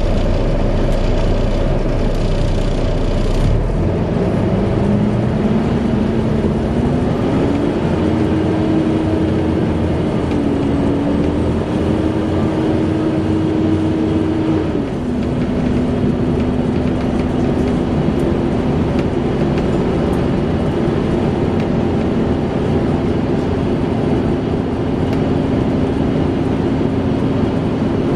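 Volvo B7TL bus running with the vacuum-cleaner-like whine of its engine cooling fan. The whine rises in pitch over a few seconds, holds, then drops suddenly about halfway through and stays steady.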